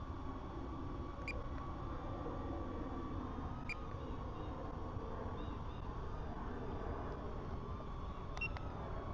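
Camera shutter sound of photos being taken with the DJI Neo in FPV mode, three short clicks: about a second in, a little before four seconds, and near the end. Under them a steady wind rumble and a faint wavering high hum.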